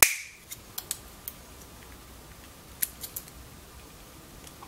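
Side cutters snapping through the clear plastic housing of an optical encoder's read module: one sharp crack with a brief ring, followed by a few light clicks over the next few seconds.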